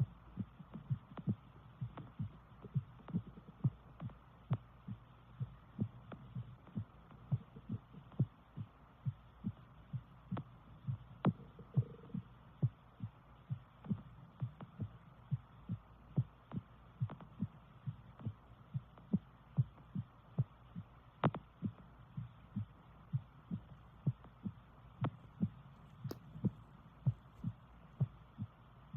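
A woman's heartbeat: low thumps repeating in a steady, even rhythm over a faint steady hum.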